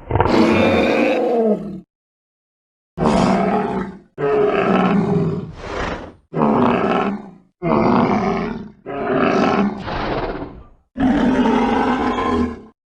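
Sound-effect roars and growls of an Arrhinoceratops, a horned dinosaur: a series of about eight separate calls, each lasting up to two seconds, with short silences between them.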